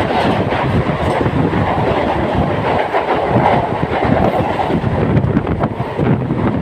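Mumbai suburban electric local train running at speed, heard on board: loud continuous rumble with wheels clattering over the rail joints.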